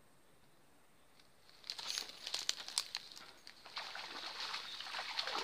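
Sudden splashing and sloshing starting about one and a half seconds in, as a snakehead strikes the lure at the surface and thrashes on the line, with sharp crackling noise.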